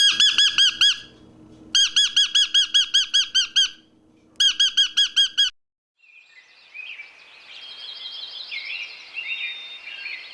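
A bird calling in three rapid runs of repeated, rising-and-falling notes, about eight a second, with short pauses between runs. After a brief break, several softer bird chirps and trills sound over a steady background hiss.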